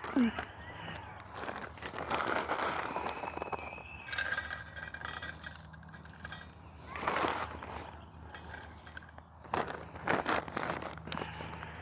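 Dog food being put into a bowl: rustling, scraping and light clinking in several short bursts, the loudest about four seconds in.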